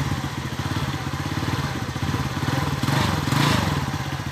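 TVS Ntorq scooter's single-cylinder engine idling with an even beat, rising briefly about three seconds in. The engine is running smoothly now that its loose magneto (flywheel) nut has been tightened.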